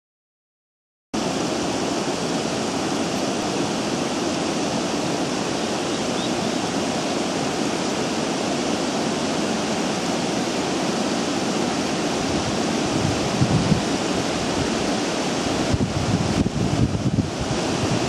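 Steady rushing of water in open treatment basins, starting about a second in. From about two thirds of the way in, wind buffets the microphone in uneven low gusts.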